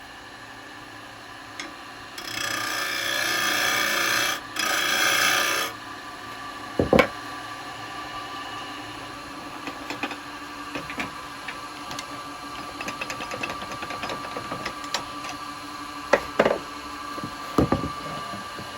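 Wood lathe running while a turning tool cuts a dry wood bowl blank: a loud hissing cut lasting about three and a half seconds, briefly broken partway through, then lighter scraping cuts with scattered ticks and a few sharp knocks.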